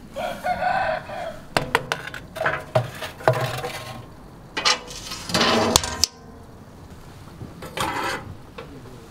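Chickens calling, with a loud crow about five seconds in, over the metallic clatter of a baking tray being slid onto the rack of an iron wood-fired oven and the oven's iron door and latch being handled.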